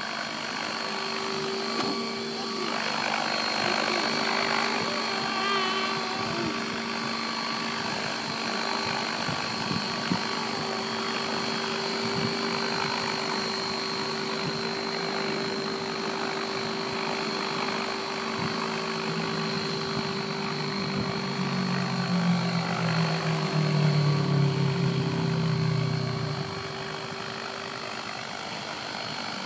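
Align T-Rex 600 RC helicopter in an MD500E scale body hovering: a steady drone of rotor and drive with a high whine. A louder, lower throb swells for several seconds near the end, then eases off.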